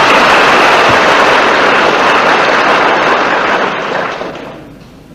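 Audience applauding, a dense clatter of many hands that breaks out suddenly, holds, then dies away about four seconds in.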